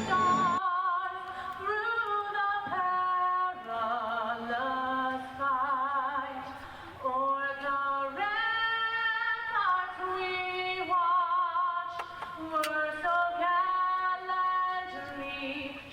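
A woman singing a series of long held notes with vibrato, unaccompanied, each note lasting a second or two with short breaks between.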